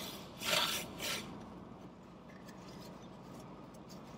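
A short, noisy burst of breath through a paper napkin held over the nose, about half a second in, then faint rubbing of the napkin.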